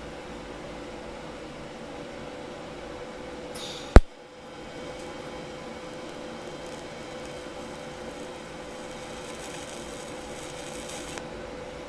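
TIG welding arc on stainless steel, a steady buzz with a constant hum tone, broken by one loud sharp pop about four seconds in. The arc is spattering, which is taken as a sign of not enough argon shielding gas.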